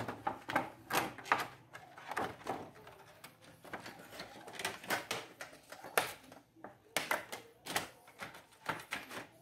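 Thin plastic LED reflector sheet crinkling and clicking as it is handled and pressed down onto the TV's metal back panel: an irregular string of sharp clicks and rustles.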